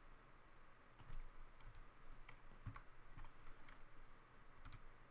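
Faint, scattered clicks of a computer mouse and keyboard, about ten of them, starting about a second in, over a low room hiss.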